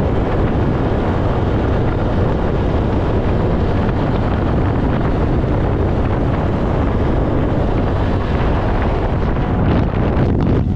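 Wind buffeting the microphone of a camera on a moving motorcycle: a loud, steady rush of air with the bike's road noise under it.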